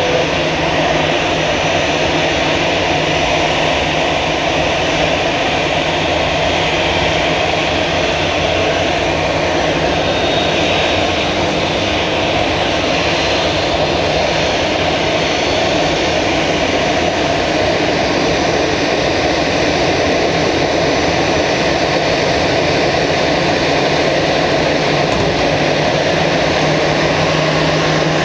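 Steady, loud jet noise from an Airbus A320 on the ramp during pushback, with a low steady hum from the pushback tug's engine underneath.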